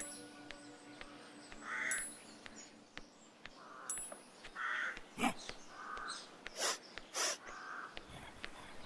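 Crows cawing at intervals, one short harsh call every second or so, with three louder harsh noisy bursts between about five and seven and a half seconds in.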